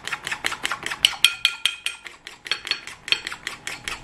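Egg whites being whisked to a froth by hand with a metal utensil in a small dish, the utensil clicking against the dish about six times a second. Some strokes leave a brief ringing tone, and the beating pauses for a moment about two seconds in.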